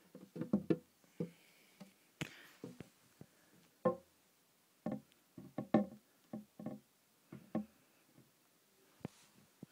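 Irregular hollow knocks and taps, each with a short low ringing, from a container being handled and knocked while a tarantula is moved between tubs.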